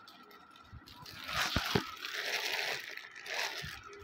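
Rustling and handling noise from clothes being moved about on a table, with a couple of soft knocks about a second and a half in.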